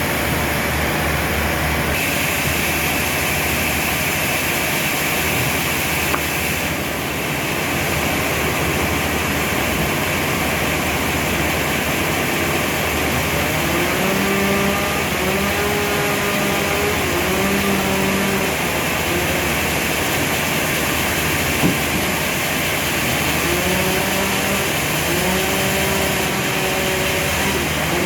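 Heavy sawmill machinery running steadily, with a motor tone that rises in and out in short held stretches during the second half.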